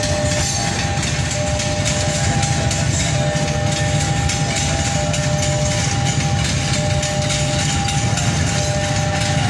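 KRL electric commuter train running along the tracks: a steady rumble of wheels on rail, with a steady high whine over it.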